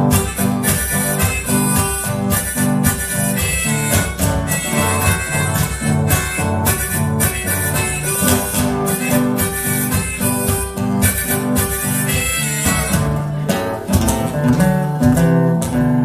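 Instrumental Argentine polka played live on two acoustic guitars with percussion, at a lively, even beat.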